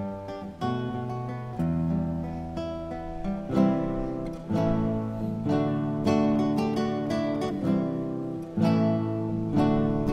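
Background music: solo acoustic guitar playing plucked notes and chords.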